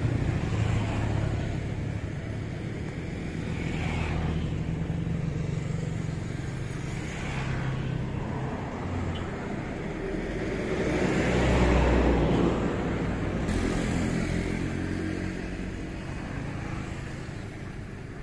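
Engines running with a steady low drone that swells to a peak about eleven seconds in, then fades near the end.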